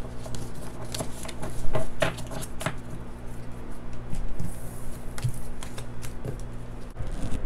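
Oracle cards being handled and shuffled, with cards gathered up off a table: a run of light flicks and taps of card stock.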